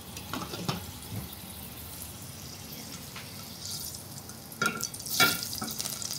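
Water boiling in a pot of peanuts under a glass lid, with light clinks from the lid. About five seconds in come a few louder clattering knocks as hot oil sizzles in a frying pan.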